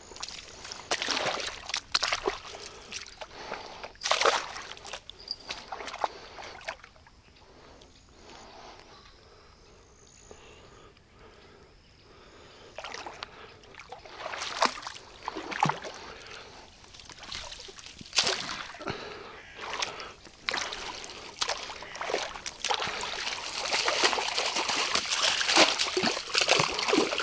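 Water splashing and sloshing in irregular bursts as a small hooked fish is brought in, growing denser and louder over the last several seconds.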